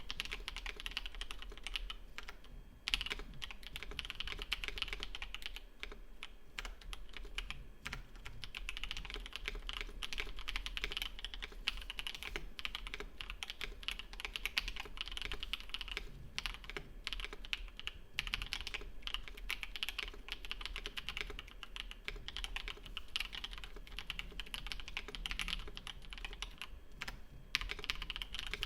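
Continuous fast typing on a KBD67 Lite mechanical keyboard with stock, unlubricated Red Jacket linear switches: a dense patter of key strokes, with a brief pause about three seconds in.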